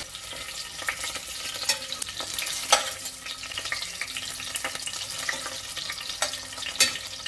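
Chicken pieces sizzling as they fry in hot oil over a raised flame, with a utensil clicking and scraping against the pan as they are stirred; sharper knocks come about two and three-quarter seconds in and again near the end.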